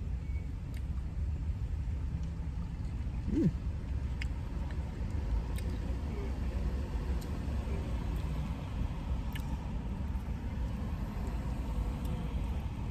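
Steady low rumble of a car idling, heard from inside the cabin, with a few faint clicks and one short rising hum about three and a half seconds in.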